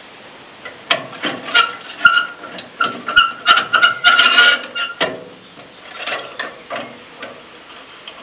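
Steel parts of a McConnel mobile sawbench clanking and scraping as it is converted by hand from cross-cutting to table mode: a run of irregular sharp metal knocks and rattles, with a ringing metallic note through the middle few seconds.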